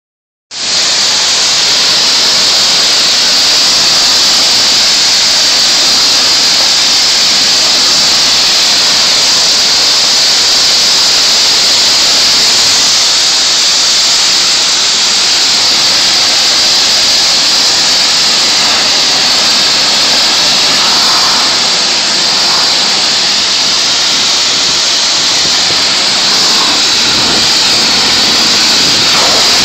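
Steady, loud hiss of a high-pressure water spray from a pressure-washer wand, striking the car's wet paintwork.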